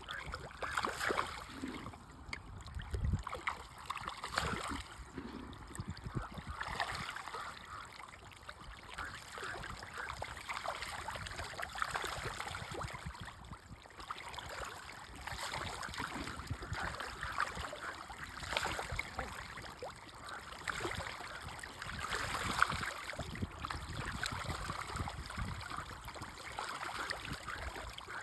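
Water surface splashing and trickling with many small irregular splashes, the kind of sound fish make snapping up feed at the surface.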